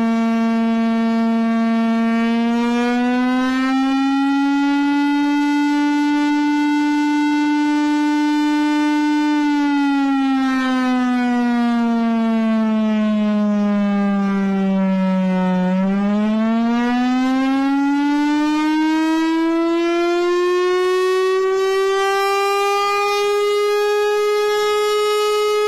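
A danger warning siren sounding one continuous, steady wailing tone. Its pitch rises slightly in the first few seconds and holds, sinks slowly to its lowest about two-thirds of the way through, then climbs steadily to a higher pitch and holds there near the end.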